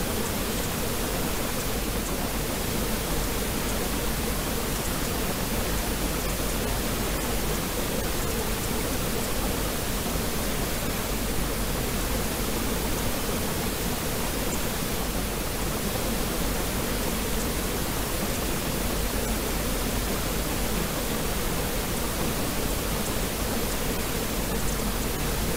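Steady, even rushing noise like pink noise, unchanging throughout.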